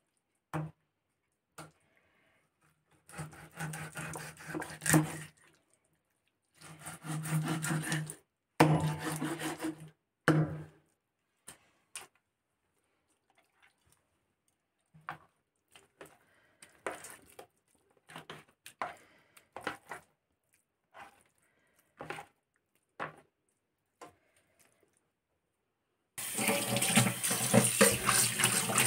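A large knife sawing through fish on a wooden chopping board in several rasping strokes, then scattered light knocks as the pieces are handled. Near the end, a kitchen tap starts running steadily into a steel sink while the fish pieces are rinsed in a wire strainer.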